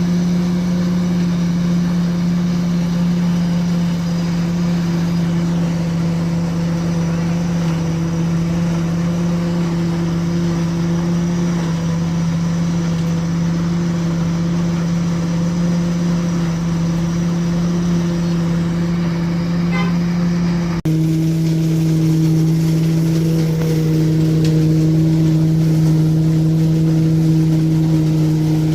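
Steady engine drone holding one constant pitch. About 21 seconds in it cuts abruptly to a slightly lower, equally steady pitch.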